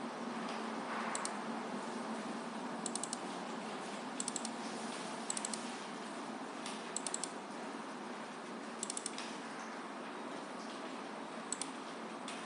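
Computer mouse buttons clicking in quick clusters of two to four, about eight times at uneven intervals, over a steady hiss of room noise.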